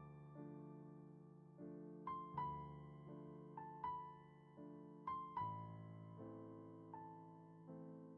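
Soft background piano music: slow chords, with high notes struck one after another, each note fading away.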